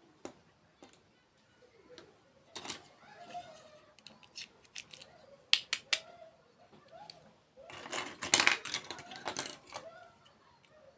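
Sharp clicks and taps of small objects being handled, a few spread apart, then a dense run of clicking and rustling about eight seconds in.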